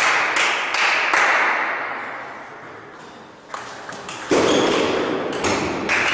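Clapping dies away, then a celluloid table-tennis ball clicks a few times off the bats and table in a short rally. Loud applause breaks out just after, as the point is won.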